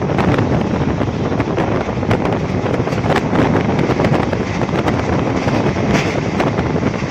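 A vehicle running: a loud, steady rumbling noise with frequent short rattles and clicks, with wind buffeting the microphone.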